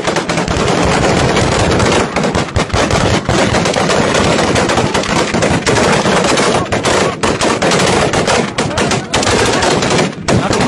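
Rapid automatic rifle fire close to the microphone, shots coming so fast and densely that they run together, with a brief let-up about ten seconds in.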